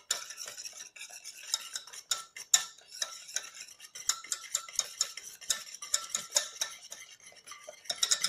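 Wire hand whisk stirring cake batter of beaten egg, sugar and cocoa in a steel bowl: quick, uneven clinks and scrapes of the wires against the metal.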